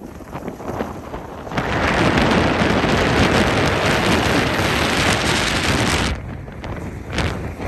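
Rushing hiss of riding down a groomed ski slope: wind on the microphone together with board or ski edges scraping the snow. It swells about a second and a half in, drops off about six seconds in, and has a brief surge near the end.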